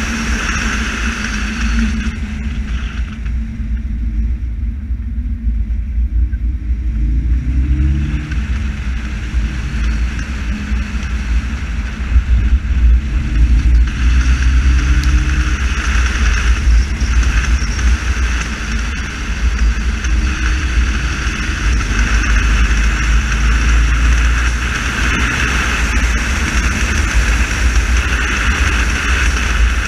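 Car driving at speed, heard from a bonnet-mounted camera. Wind and road noise buffet the microphone, and the engine note rises and falls as the car accelerates and eases off.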